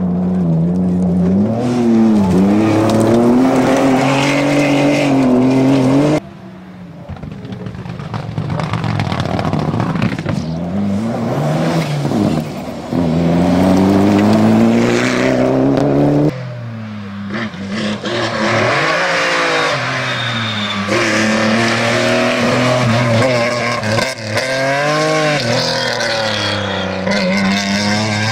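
Rally car engines at hard throttle, revving up and dropping back through gear changes as three cars pass in turn: a Renault Clio, then a Mitsubishi Lancer Evolution, then a BMW 3 Series. The sound changes abruptly from one car to the next about 6 and 16 seconds in.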